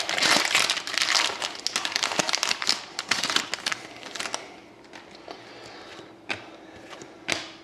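A trading card pack's wrapper being torn open and crinkled for about four seconds, then a few light clicks as the cards are handled.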